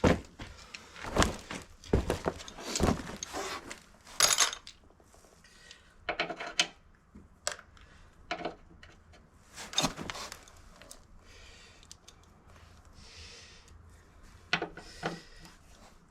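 Metal tools and parts clinking and knocking in separate irregular clanks and thuds, the kind of handling heard while taking apart a riding mower's deck pulley assembly. The knocks come thick in the first several seconds, pause for a few seconds past the middle, and return as a pair near the end.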